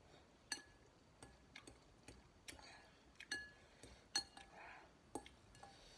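Metal fork clinking against a glass bowl while stirring and scooping noodles: about a dozen sharp, irregular clinks. Soft chewing sounds come in between them, twice.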